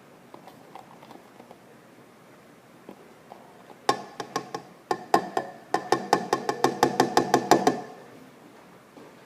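Rapid hollow knocking, about five knocks a second: a plastic glue bottle being tapped to get the glue out. It starts about four seconds in and stops near the eight-second mark.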